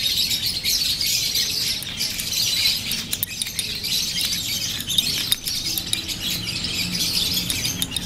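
A flock of small birds chirping and chattering continuously, with a metal spoon stirring hand-feeding formula in a small ceramic cup and clinking against it now and then.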